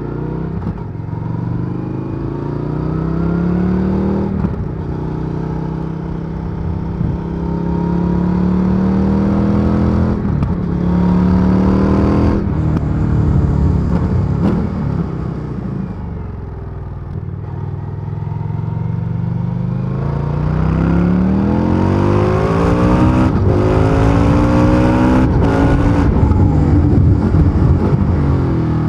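2023 Indian FTR Sport's V-twin through its stock exhaust, accelerating hard in Sport mode: the engine pitch climbs and drops back at each upshift, several times. About halfway through it eases off and falls in pitch, then pulls hard again through more rising revs and shifts.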